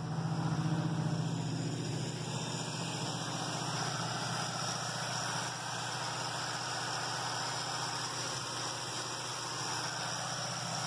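Chevrolet Cheyenne 10 pickup's four-barrel carbureted V8 idling steadily on the choke's fast-idle setting, at about 1600 RPM, a little high, just after starting.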